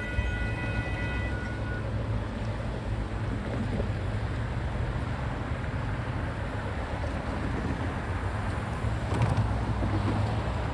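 Union Pacific intermodal stack train rolling through a grade crossing: a steady low rumble with wheel-on-rail noise throughout. A locomotive horn chord carries on at the start and cuts off about one and a half to two seconds in.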